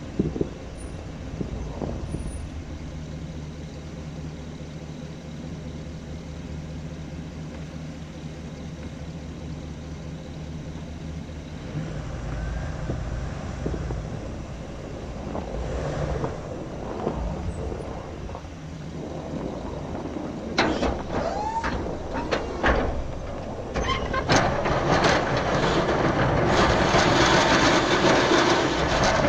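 Chevrolet 2500HD pickup truck engine running steadily at idle, then changing as the truck pulls away with a Fisher V-plow mounted on the front. From about twenty seconds in come scattered clicks and knocks, and the last few seconds are a loud rushing noise as the plow blade pushes through snow.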